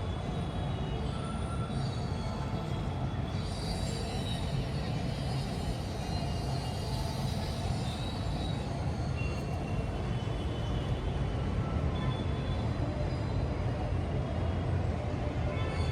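Steady low rumble of night-time city ambience, with thin high squealing tones coming and going over it.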